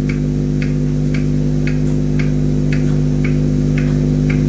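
Steady low electrical hum with a buzzy stack of overtones, over soft, evenly spaced ticks about twice a second.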